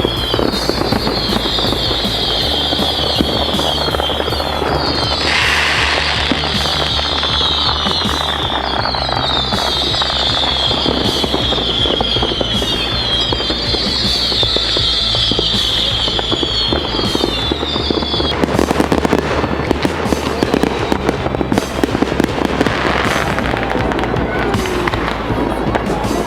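Fireworks display: dense crackling and popping bursts, with repeated high falling whistles in the first part and heavier crackling from about two-thirds of the way in. A steady music track plays underneath.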